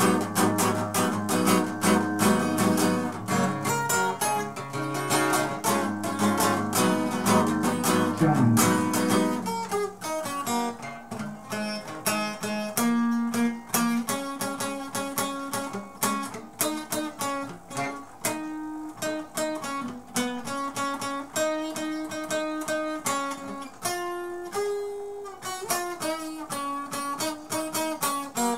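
Acoustic guitar strummed hard and fast for about the first ten seconds, then played lighter and sparser, with single notes ringing between strums.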